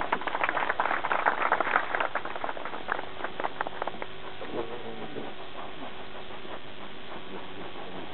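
Audience applauding: dense clapping that thins out and dies away after about four seconds, leaving a faint steady hum.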